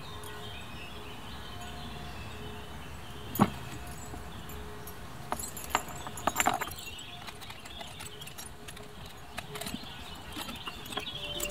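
Dip-belt chain clinking and scraping against rubber bumper plates as it is threaded through their centre holes. There is one sharp clank about three seconds in and a cluster of clinks a couple of seconds later.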